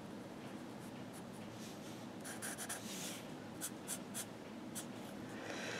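Felt-tip marker drawing on paper: faint, short scratchy strokes as lines are inked in, most of them from about two seconds in.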